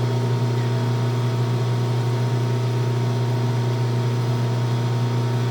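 Steady low electrical or machine hum with a constant pitch and no change in level.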